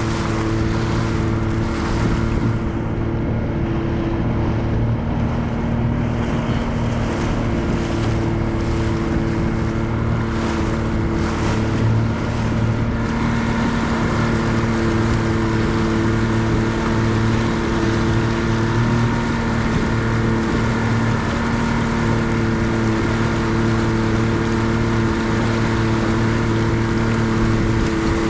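Outboard motor of a small bay boat running at a steady cruising speed, a constant drone, with wind and water rushing past. The rush of wind and water grows louder about halfway through.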